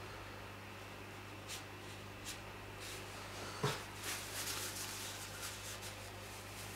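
Painting tools being handled over a steady low electrical hum: a few faint ticks, a single knock a little past halfway, then a short run of soft clicks and rustles.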